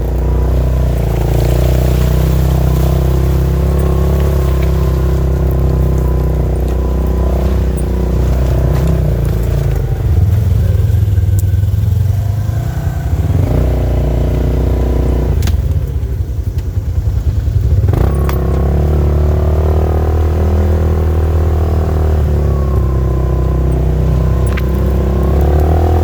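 Polaris RZR side-by-side's engine running under way on a trail. Its note holds fairly steady, then drops to a low, pulsing throb for several seconds midway before picking back up.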